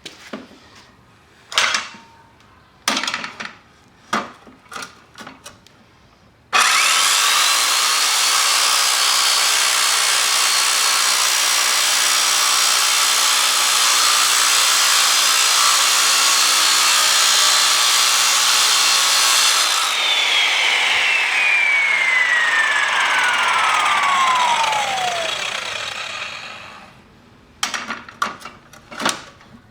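Electric saw fitted with a metal-cutting blade, cutting steel angle. It starts abruptly about six seconds in with a high whine and runs steadily for about thirteen seconds. The whine then falls away over several seconds as the blade spins down. A few knocks and clatters come before it starts and near the end.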